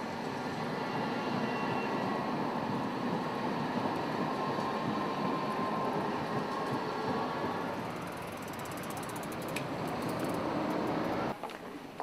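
A tram running past on street rails, a dense rattling rumble with a faint squeal from the wheels. Near the end come a run of light ticking clicks, then the sound drops away suddenly.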